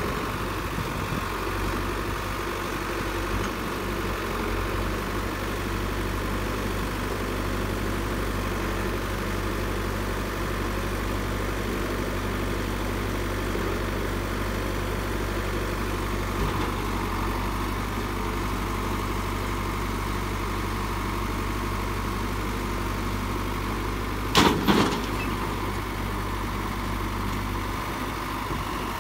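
Diesel engines of a Caterpillar 424B backhoe loader and a Massey Ferguson tractor running steadily. A brief, loud cluster of knocks comes near the end.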